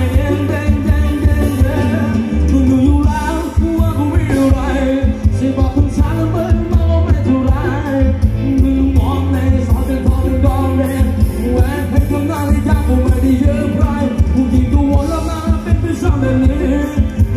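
Loud live band playing Thai ramwong dance music, with a heavy steady bass beat and a singer.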